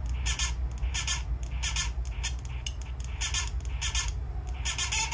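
Homemade sound-bending synth playing its recorded sample back in a loop through a small speaker: short hissy, scratchy bursts repeating about three times a second, breaking off briefly twice, over a steady low hum.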